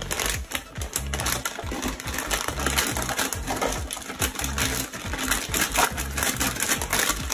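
Crisp packet crinkling while crisps are shaken out and rattle down into a toilet bowl, a dense run of crackles and light clatter. Background music with a steady low beat plays underneath.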